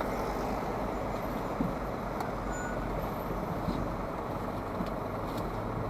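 Diesel delivery truck driving, its engine and road noise heard from inside the cab as a steady rumble.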